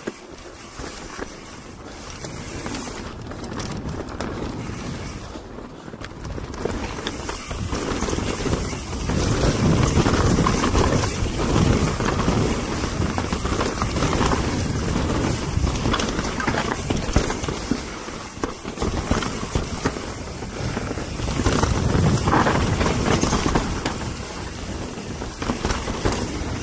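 Wind rushing over a body-mounted action camera's microphone as a mountain bike descends a dirt singletrack at speed, mixed with the tyres rolling on dirt and short clicks and clatter from the bike. It gets louder and gustier about nine seconds in.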